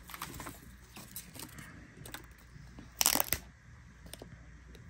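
Peeling the paper sticker seal off a plastic domed drink lid and handling a straw: small crinkles and clicks, with a brief loud tearing rustle about three seconds in.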